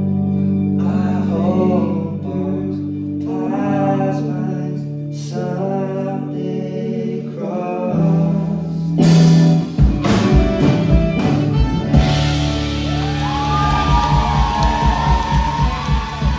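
Music: a voice singing over held chords, then a steady beat comes in about ten seconds in.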